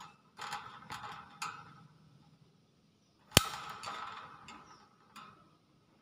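Common hill myna making a string of short noisy sounds and sharp clicks, with one very loud, sharp snap a little over three seconds in.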